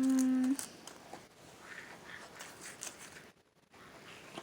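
A short, steady hummed "mmm" from a girl, held at one pitch for about half a second, then faint clicks and rustling of handled items.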